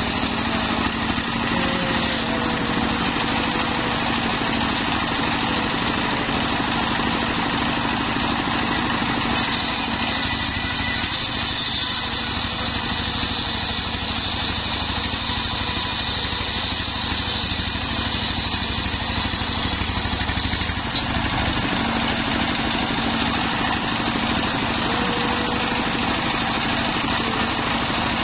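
A single-cylinder stationary diesel engine runs steadily under load, driving a circular saw blade ripping a long waru log into beams. The blade's high whine grows stronger for about ten seconds in the middle, then eases, with one short click.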